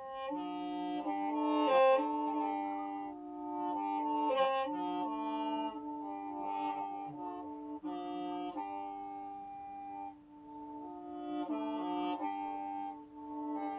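Hmong qeej, a free-reed bamboo mouth organ, being played: several reed notes sound together over a held low note, while the upper notes change every second or so.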